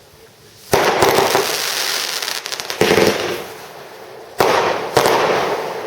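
Fireworks going off: sharp bangs about a second in, near three seconds and twice near the end, each followed by a dense crackling hiss that fades.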